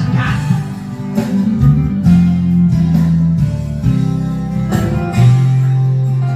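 Music: a guitar-led instrumental passage of a song, with strummed and held notes.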